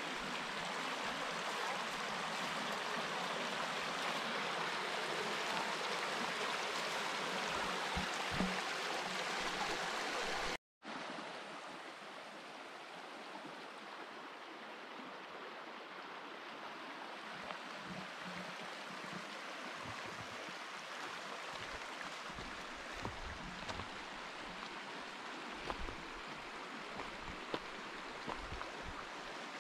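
A small mountain creek running over rocks: a steady rushing of water. It cuts out for an instant about ten seconds in, then carries on a little quieter.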